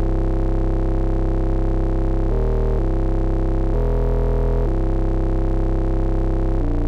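Moog Messenger analog synthesizer playing a deep, heavy bass patch in long held notes. The pitch shifts to another note briefly about two seconds in, again around four seconds, and once more near the end.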